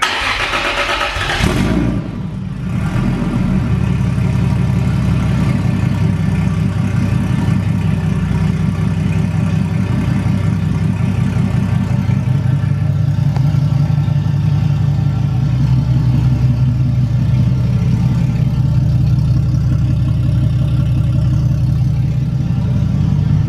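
Toyota JZ-series inline-six swapped into a Fox-body Mustang fires on the first try after sitting unstarted for over a month. It flares in revs for the first couple of seconds, dips, and then settles into a steady idle.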